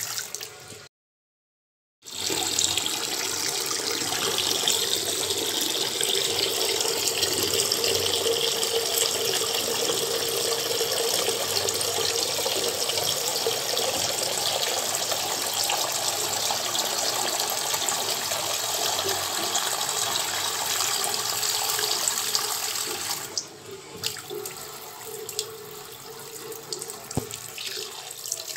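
Steady rushing hiss, cut off briefly to silence about a second in and falling to a quieter level near the end.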